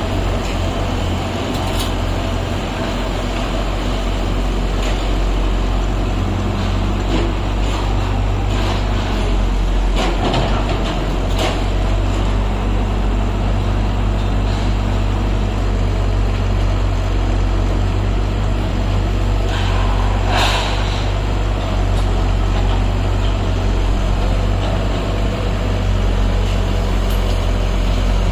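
Excavator engine running steadily with a deep low rumble, with scattered sharp knocks, the loudest about twenty seconds in.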